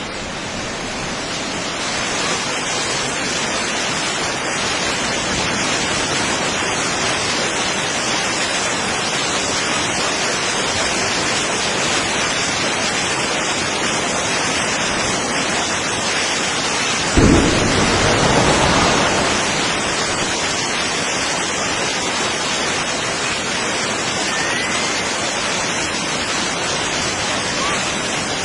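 A steady rushing noise, like heavy rain or surf. About two-thirds of the way through there is a sudden loud boom with a deep rumble that dies away over a couple of seconds.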